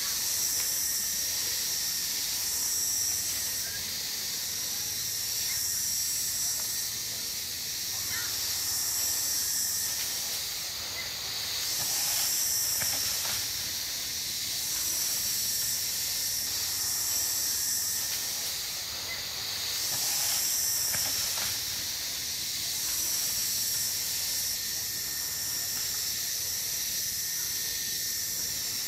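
Dense, high-pitched chorus of tropical forest insects, swelling and fading every couple of seconds over a steady high whine.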